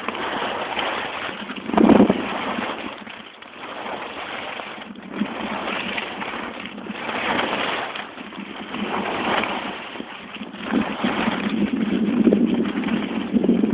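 Skis hissing and scraping over packed snow on a downhill run, swelling and fading every second or two, with wind rushing over the microphone. A sharp thump about two seconds in.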